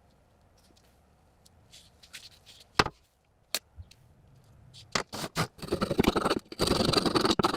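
A few sharp clicks and taps, then from about five seconds in a stretch of rough, rapid scraping on the rusty knife's metal, the loudest part.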